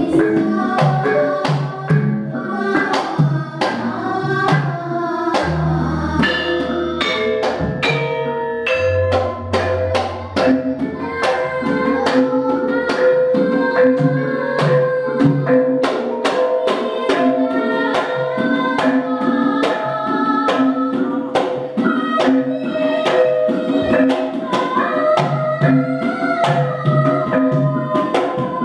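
Javanese gamelan ensemble playing: bronze metallophones and gongs struck in a steady beat driven by the kendang drum, with a girl singing palaran, a Javanese tembang, through a microphone over it. Deep gong tones sound low beneath the ensemble in the first half.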